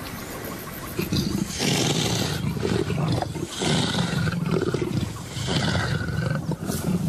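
Big cat growling in four or five loud, rough bouts, starting about a second in, while defending a kill.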